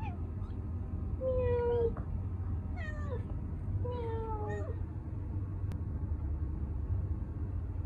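A cat meowing three times, each call under a second long and falling in pitch, over a steady low hum.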